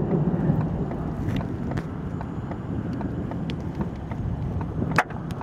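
Storm wind rushing over the microphone, with scattered sharp ticks of hailstones striking nearby and one louder strike about five seconds in.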